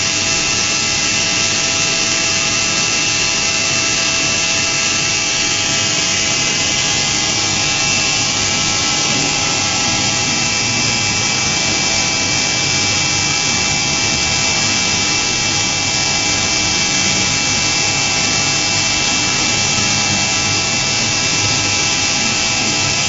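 DMU 5-axis CNC machining centre milling a metal part: a steady spindle whine with several fixed tones over a constant machining noise, unbroken throughout.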